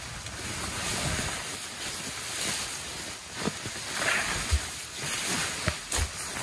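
Steady rushing of wind on the microphone, broken by a few soft low thumps about halfway through and near the end.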